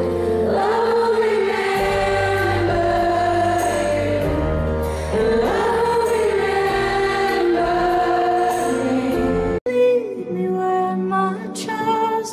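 Choral music: several voices singing over a bass line. It cuts off abruptly about nine and a half seconds in and gives way to a softer sung passage without the bass.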